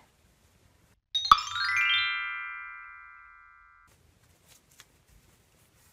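A bright musical chime sound effect: a short sparkling attack about a second in, then a ringing chord that fades slowly for a couple of seconds and cuts off abruptly.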